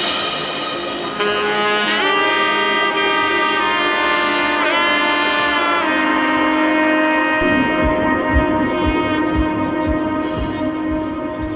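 Background music: a lead melody of long held notes with a pitch bend near the middle, over sustained chords, with a soft low beat coming in about two-thirds of the way through.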